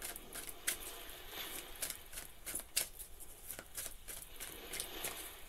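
A deck of tarot cards being shuffled by hand: irregular soft clicks and rustling of cards against each other.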